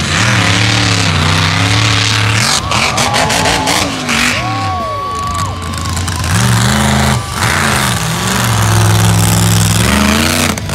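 Mega truck's big engine revving hard, its pitch climbing, holding at high revs and dropping again several times as it drives across dirt. A higher, fainter whine rises and falls around the middle.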